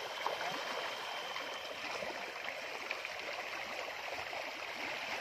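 A crowd of farmed fish splashing at the surface of a floating net cage as they take floating feed pellets: continuous watery churning with many small slaps.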